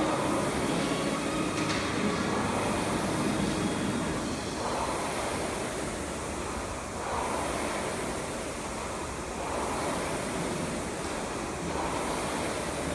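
Concept2 air-resistance rowing machine in steady use: the flywheel fan gives a whoosh that swells with each drive, about one stroke every two and a half seconds.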